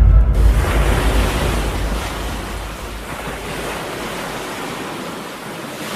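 Sea surf washing on the shore, with wind buffeting the microphone in a low rumble that is heaviest in the first two seconds and then eases.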